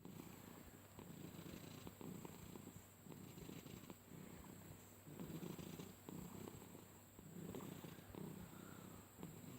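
Domestic cat purring while being petted, a low, faint purr that swells and fades in a slow, uneven rhythm with its breathing.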